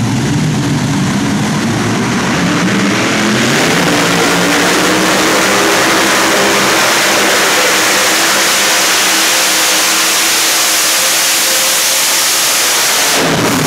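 Unlimited-class pulling tractor's several supercharged engines at full throttle, dragging the weight-transfer sled. The engine note rises over the first few seconds, then holds steady at high revs, and drops off sharply near the end.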